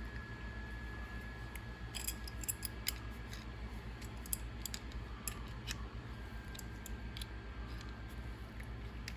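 Small, irregular metallic clicks and taps as aluminum RC steering parts and a hand tool are handled while a part is tightened down, over a steady low hum.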